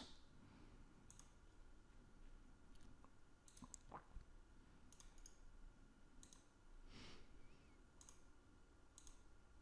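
Faint computer mouse clicks, scattered roughly once a second, over near-silent room tone.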